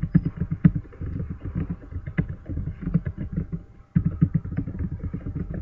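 Fast typing on a computer keyboard: a rapid run of dull key clicks, with a brief pause about four seconds in.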